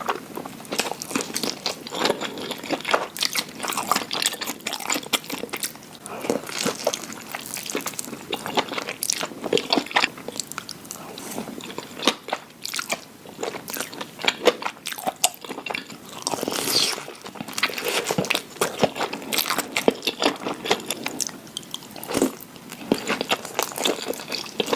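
Close-up eating sounds of Korean rice cakes being bitten and chewed: continuous irregular wet clicks and smacks of a chewing mouth.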